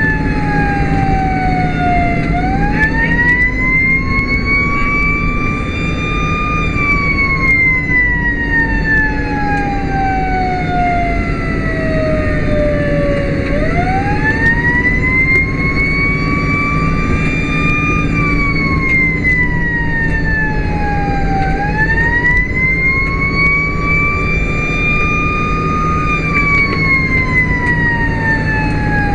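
Whelen Sapphire electronic siren sounding a slow wail, rising and falling about three times, heard from inside the cab of a 2007 Toyota Tundra over steady engine and road noise.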